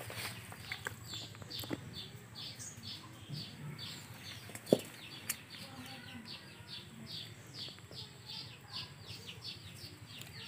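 Fish curry being tipped from a metal pan into a steel plate, with one sharp metal clink a little under five seconds in and a lighter one just after. A bird calls throughout in short falling chirps, about three a second.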